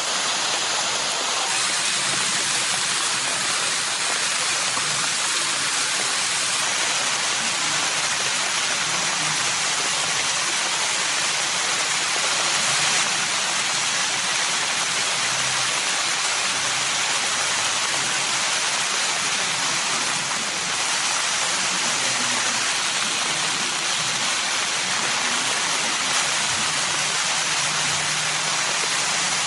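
Steady rain falling and pattering on a plastic tarp shelter: an even, unbroken hiss.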